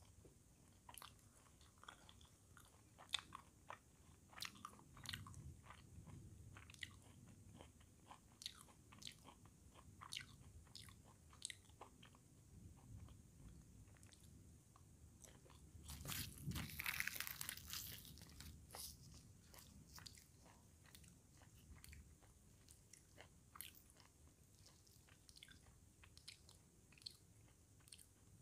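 Close-miked eating: a person biting and chewing puri, potato bhujia and crisp fried okra, with many small crunches and wet mouth clicks. A louder, denser stretch of crunching comes about sixteen seconds in.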